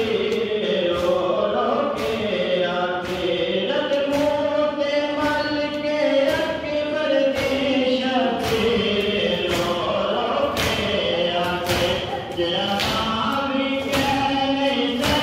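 A group of mourners chanting a nauha (Shia mourning lament) together, with sharp hand strikes of matam (chest-beating) keeping the beat about once or twice a second.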